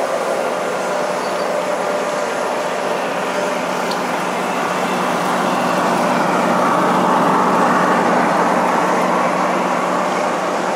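1:22.5-scale (G gauge) model train, a diesel locomotive with coaches, running along the track, a steady rolling rumble of wheels and motor that grows louder as the train passes close about two-thirds of the way in, over a steady low hum.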